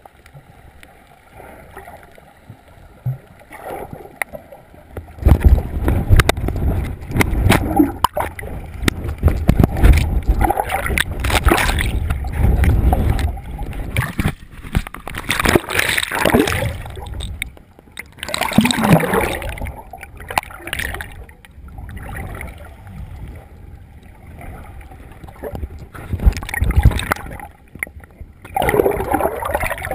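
Water sloshing, gurgling and splashing around a waterproof camera carried by a swimming snorkeler, heard muffled through the housing as it moves between underwater and the surface. It is quiet for the first few seconds, then comes in loud, irregular surges with a low rumble and scattered knocks against the housing.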